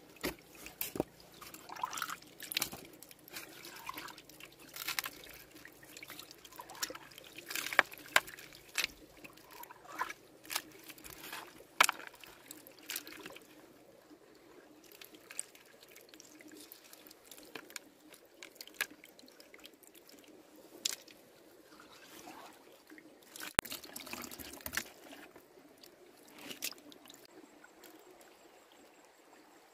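Hands splashing and sloshing in a shallow muddy pool among stones, with irregular drips and small splashes, busiest in the first half and thinning out later. A single sharp knock comes about two-thirds of the way through.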